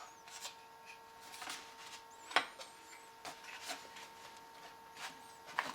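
Scattered light clicks and knocks of a Ruger 10/22 barreled action being fitted into a polymer Magpul Hunter X22 stock, with one sharper knock about two and a half seconds in. A faint steady hum runs underneath.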